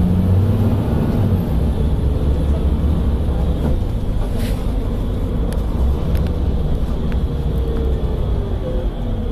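Volvo B7TL bus's diesel engine running under way, heard from inside the passenger saloon as a steady low drone with slight shifts in pitch. A few light clicks and rattles are heard around the middle.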